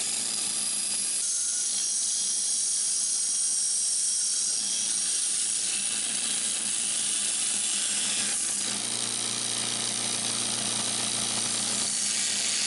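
Bench grinder running with a steady motor hum while a wooden handle is ground against its wheel, giving a continuous hiss. The grinding gets fuller about eight seconds in.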